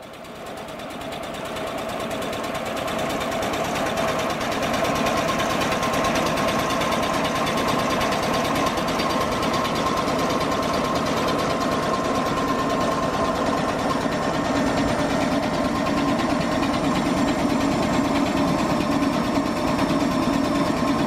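Restored Fairbanks Morse Type DH 3.5 kW DC dynamo running on test. It comes up to speed over the first few seconds, then runs steadily with a fast mechanical clatter and a steady whine.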